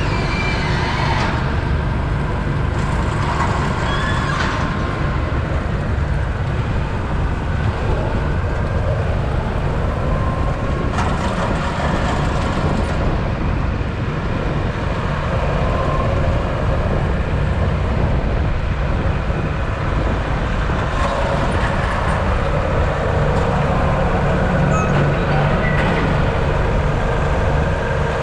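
Farm tractor engine running steadily under the hay equipment, with a few brief knocks and rattles on top.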